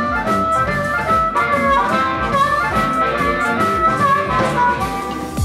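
Blues harmonica played cupped against a handheld bullet microphone, giving an amplified, horn-like tone as it plays a melodic line of held and changing notes.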